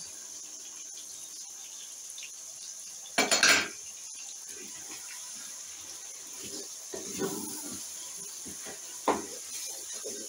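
Spoon stirring chunky vegetables and chicken in a cooking pan, scraping and clattering against the pan. There is one loud scrape about three seconds in, irregular smaller scrapes after it, and a sharp knock near the end.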